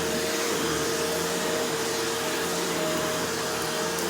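Shark Rotator Powered Lift-Away upright vacuum running steadily: an even rush of airflow with a steady motor whine, newly working again after restoration.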